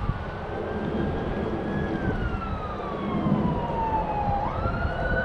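Emergency-vehicle siren wailing: one tone glides slowly down for about four seconds, then sweeps back up sharply near the end, over a steady low rumble of background noise.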